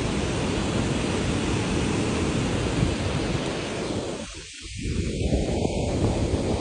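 Steady rushing noise of wind buffeting the microphone, mixed with river water. It drops away briefly about two-thirds of the way through.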